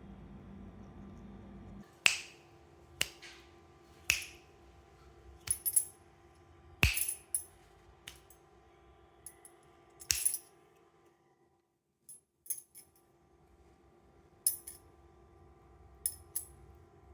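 Pet parrot biting into fruit and vegetables with its beak: a dozen or so sharp clicks and cracks at irregular intervals, some in quick pairs.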